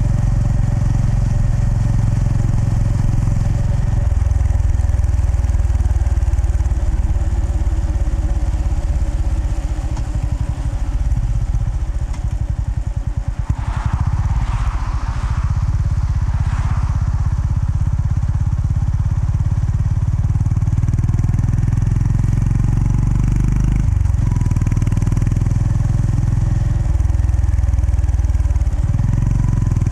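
Honda GB350S's air-cooled single-cylinder engine running under way on the road. A brief rushing noise passes about halfway through, and the engine note breaks off briefly twice near the end.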